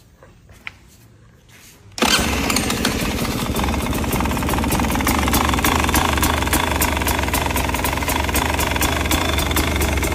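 Beta 300RR two-stroke single-cylinder dirt-bike engine. It comes on suddenly about two seconds in and then idles steadily.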